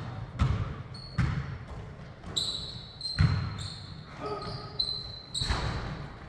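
Indoor pickup basketball on a hardwood gym floor: several irregular thuds of the ball and feet on the floor, with short high sneaker squeaks around the middle.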